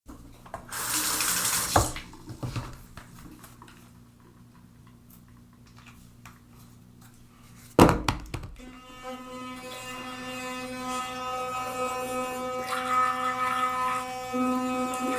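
A short hiss and a few knocks, then a loud click about eight seconds in, after which an electric toothbrush motor buzzes steadily with a high, even tone, a scrubbing sound joining it near the end as it brushes teeth.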